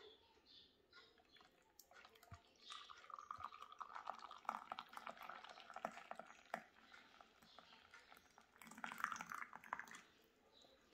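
Hot coffee poured from a vacuum flask into a glass cup: a faint splashing trickle lasting about four seconds, then a second, shorter spell of liquid sound near the end.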